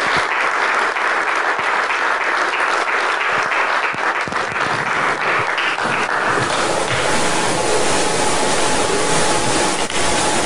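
Audience applauding, a dense patter of hand claps that dies away about six or seven seconds in and leaves a steady hiss.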